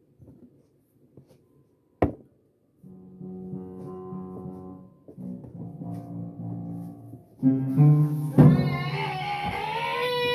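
A person moaning in long, low, held tones, then breaking into a loud, high wail that rises and holds near the end; a sharp knock about two seconds in.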